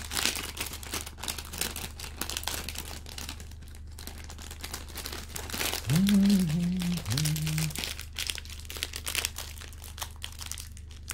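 Plastic cellophane wrapper of a 1984 Topps baseball-card rack pack crinkling and crackling as fingers pick at it, trying to get a grip to tear it open; the tight wrap is hard to grab hold of. About six seconds in, a man gives a brief two-note hum.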